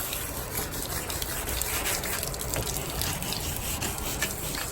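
Wet sanding: sandpaper scrubbing over the wet clear coat of a carbon fiber hood, with water running and trickling over the surface, a steady hiss.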